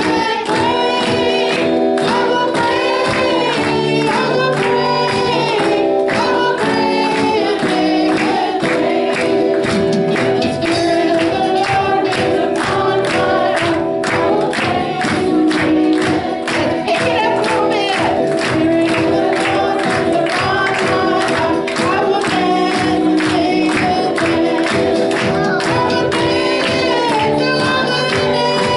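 Gospel-style worship music: a group of voices singing over held chords, with a steady percussion beat that includes tambourine.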